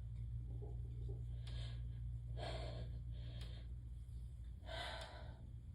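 Sharp, gasping hitching breaths on the verge of a sneeze brought on by Chhinkni sneezing powder: a few separate intakes, the strongest about halfway through and near the end, with no sneeze breaking.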